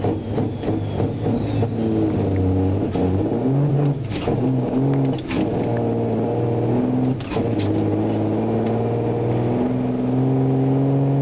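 Semi-truck diesel engine heard from inside the cab, accelerating hard under load. Its pitch climbs and then drops at each of several quick gear changes as the driver shifts up, then holds high near the end.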